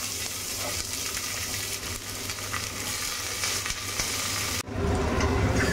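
Freshly added chopped onions sizzling and frying in hot oil in a pressure cooker, a steady hiss. About four and a half seconds in it breaks off sharply and resumes louder and fuller.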